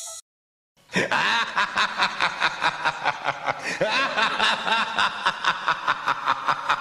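A horror-style laughing voice: a sudden, rapid, unbroken run of 'ha-ha' pulses, about five a second, starting about a second in after a brief silence.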